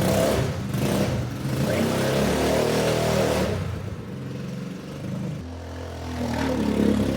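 Coleman BK150 dune buggy's small engine running and being revved, dropping back to a lower idle about halfway through and picking up again near the end. It runs smoothly now that its valve clearances have been set to spec.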